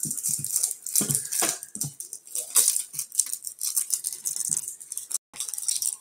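Small hard objects rattling in the hands: a quick, uneven run of clicks.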